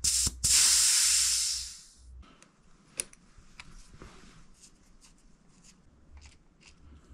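Compressed air hissing out of a RockShox Monarch XX rear shock's air valve as the shock is depressurised, the hiss fading away over about a second and a half after two quick clicks. Light clicks and taps of handling follow.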